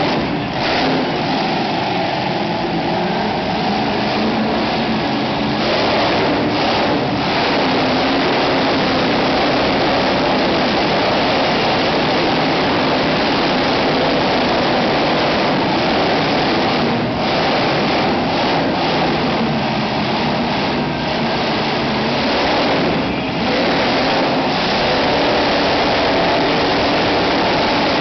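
Monster truck engine running hard and revving, loud and nearly unbroken, as the truck spins and drives around the arena floor.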